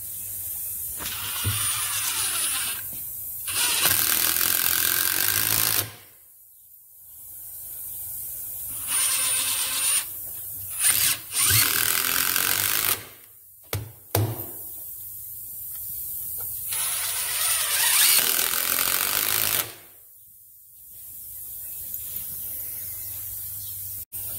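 Cordless drill driving screws at an angle into a wooden post block (toenailing), in several runs of one to three seconds with short pauses between.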